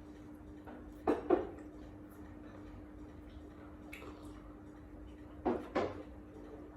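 Two pairs of short knocks, one pair about a second in and another near the end, over a steady low hum.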